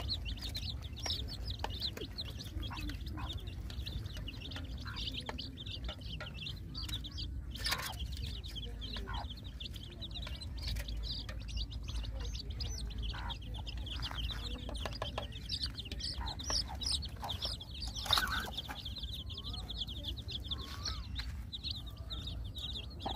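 A brood of chicks peeping constantly in quick, high-pitched cheeps, with a few sharp knocks in between.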